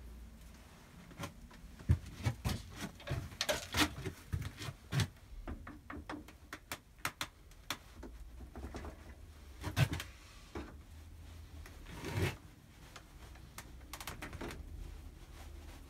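Metal parts of a Myford lathe's top slide and tool holder being handled: an irregular run of clicks, knocks and scrapes of metal on metal as a square tool holder is set onto the slide. The sharpest knocks come about two seconds in and near the ten-second mark.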